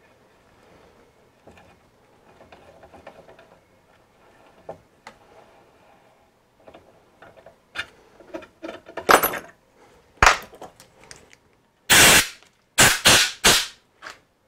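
Quiet clicks and knocks of small metal parts being handled at a bench vise, then four short, loud blasts from an aerosol spray can in quick succession near the end.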